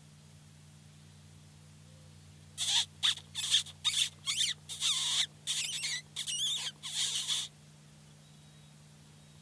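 A hunter making squeaking sounds with his mouth to imitate a distressed rodent and call in a bobcat. About ten short, high-pitched squeaks come in a quick run starting a few seconds in and stop near the end.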